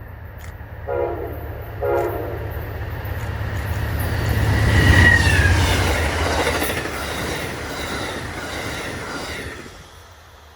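Train horn sounds two short blasts about a second apart, then the train passes at track speed with wheel and rail rattle. The rattle builds to a peak, with a brief wheel squeal in the middle, and fades away near the end.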